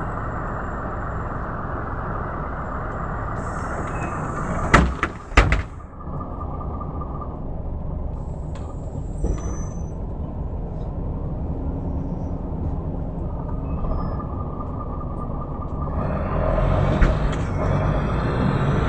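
Mercedes-Benz O405 city bus's straight-six diesel idling, heard from inside the passenger cabin, with two sharp clacks about five seconds in. Near the end the engine grows louder as the bus pulls away.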